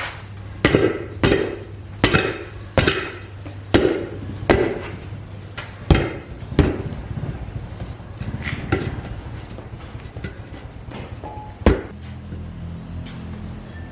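Hammer blows on metal, about a dozen sharp strikes, closely spaced for the first seven seconds and then fewer and further apart, over a steady low hum.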